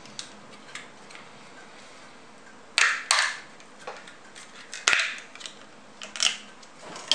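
Clear plastic clamshell CPU tray being pried open by hand: a few faint ticks at first, then from about three seconds in a string of short, sharp plastic snaps and crackles.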